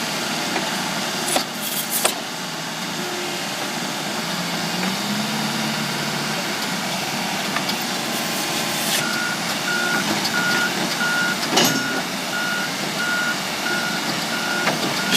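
A heavy machine's engine runs steadily and rises briefly in pitch around five seconds in. About nine seconds in, a reversing alarm starts beeping about twice a second. A few sharp clicks are also heard.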